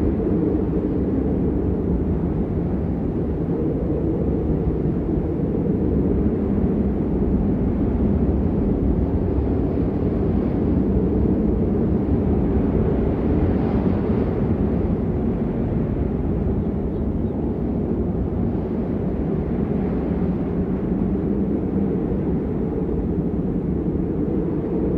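Steady rain, an even, unbroken rushing that is deep and dull, with little high hiss.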